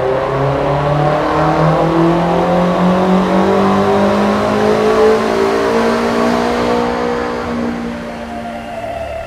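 Tuned BMW M8's twin-turbo V8, with upgraded turbochargers and a sport exhaust, running at full throttle on a chassis dynamometer: the engine note climbs steadily in pitch through one long pull for about seven seconds, then stops rising and eases off near the end.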